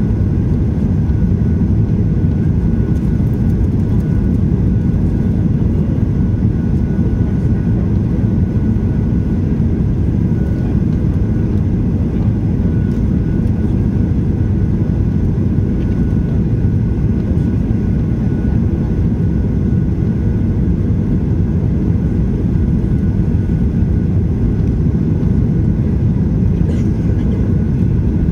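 Steady cabin noise inside a Boeing 737-800 on final approach with flaps extended: the deep, even rush of its CFM56-7B engines and the airflow over the airframe, with a faint steady whine above it.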